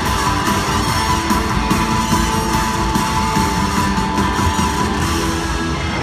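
Rock band playing live in an arena, loud electric guitars over bass and drums, at a steady level.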